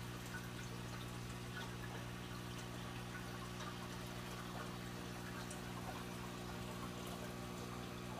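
Aquarium filter running: a steady trickle of water with faint drips over a low, even hum from the pump.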